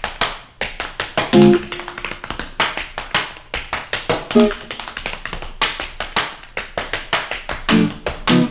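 Tap shoes striking a wooden dance floor in fast, rhythmic runs of taps, over music with a few low plucked notes.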